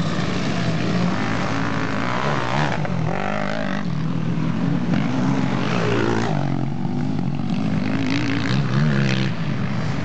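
Quad bike engine revving on a dirt track, its pitch rising and falling as the rider works the throttle.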